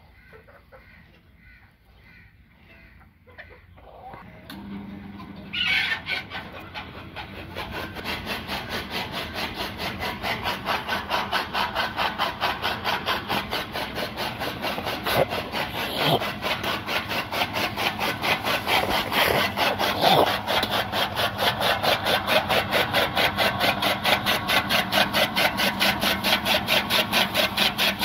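Chickens clucking faintly, then from about five seconds an electric chaff cutter running: a steady motor hum under the fast, even chop of its flywheel blades cutting green fodder stalks, about three cuts a second, growing slowly louder.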